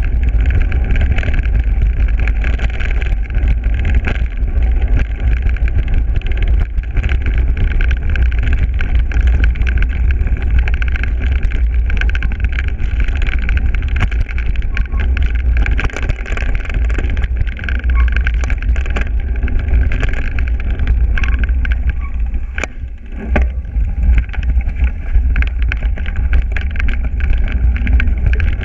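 Mountain bike riding a rough dirt trail: heavy wind rumble on the microphone, with frequent rattles and knocks from the bike and tyres over bumps. The rumble eases briefly about three quarters of the way through.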